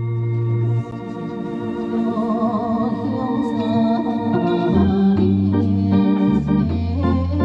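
Electronic keyboard playing an organ-voiced accompaniment: a held low bass note under a slow melody, with the bass stepping between notes from about five seconds in.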